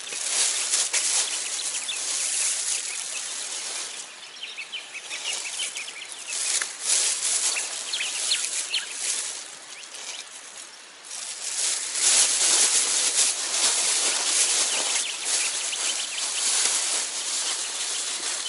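Plastic bag crinkling and rustling as it is handled and scrunched up by hand, coming in uneven crackly bursts with two quieter spells.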